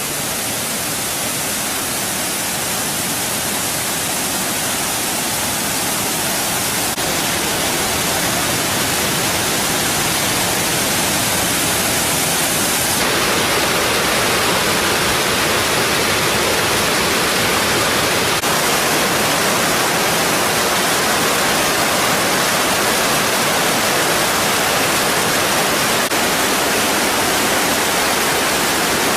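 Thirparappu Falls in flood, with a loud, steady rush of water pouring over the falls. The river is swollen by rain and by water released from upstream dams.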